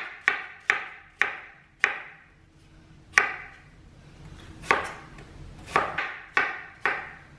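Chef's knife chopping an onion on a bamboo cutting board: sharp knocks of the blade on the wood, a quick run of about three a second at first, a pause of about a second, then slower, spaced chops.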